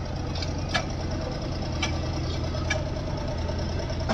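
Diesel engine of a backhoe loader or tractor running steadily, with a few sharp knocks about a second apart.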